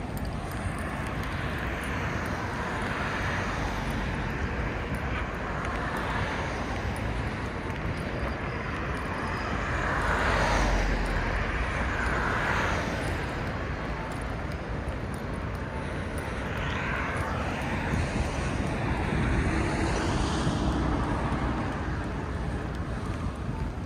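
City street ambience: a steady hum of traffic, with passing vehicles swelling louder about ten seconds in and again near the end.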